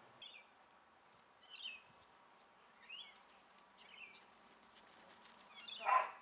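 Small birds chirping, a few short high calls spread a second or so apart, then a dog barks once loudly near the end.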